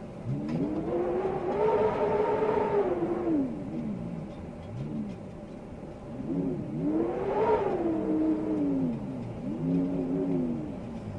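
Storm wind howling: a pitched moan that rises and falls in long swells over a steady hiss, the biggest swells about two seconds in and about seven seconds in, with a shorter one near the end.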